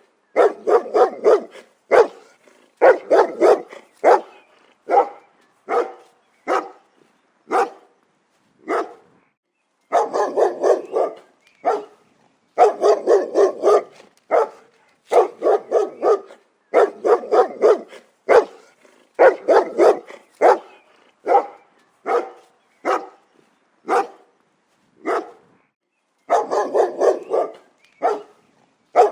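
A dog barking in quick runs of about four or five barks a second, broken by short pauses.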